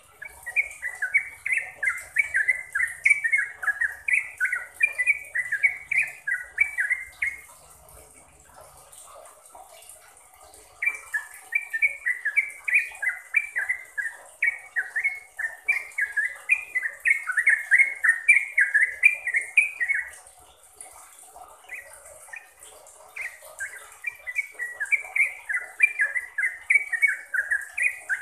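Yellow-vented bulbul singing its fast, continuous 'ropel' song: long runs of rapid, short up-and-down notes. It breaks off twice, about a quarter of the way in and again about two thirds in, each time for a few seconds.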